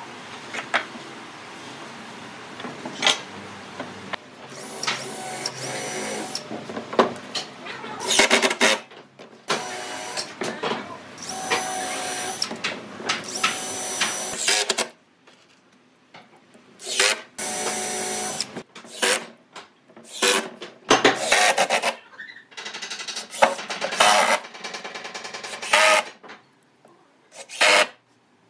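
Woodworking power tools running in short stretches with a steady whine, broken by knocks and clicks; the sound stops and starts abruptly several times.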